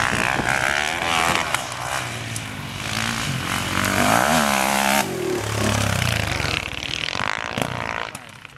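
Enduro dirt-bike engines revving up and down on a dirt course, the pitch rising and falling with the throttle. The sound changes abruptly about five seconds in, and the engine fades near the end.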